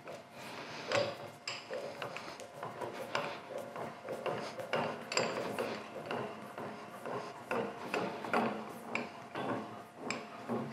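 Irregular metallic clicks and knocks from a large Wilton bench vise worked by hand, its handle and screw turning as the newly fitted brass jaws are brought together.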